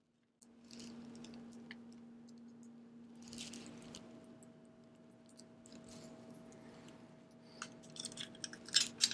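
Bicycle chain being handled by hand, its steel links clinking and rattling softly, with a run of sharper clicks near the end.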